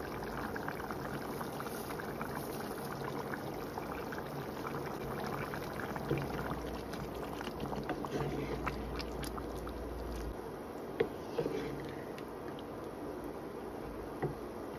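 Curry gravy simmering in a nonstick pan, with a steady bubbling crackle, while a wooden spoon stirs through it and knocks against the pan a few times.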